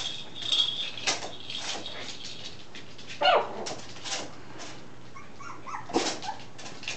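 Young Havanese puppies whimpering and yipping: a thin high whine at the start, a louder falling yelp about three seconds in, and small whimpers near the end.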